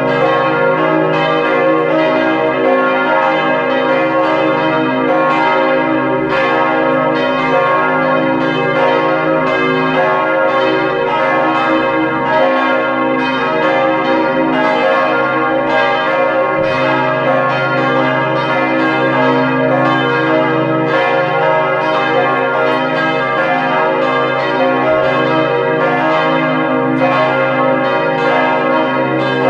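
Church bells cast by the Perner foundry ringing together in a full peal. The four bells, tuned c', e-flat', g' and b-flat', strike in a continuous overlapping tumble with no pause.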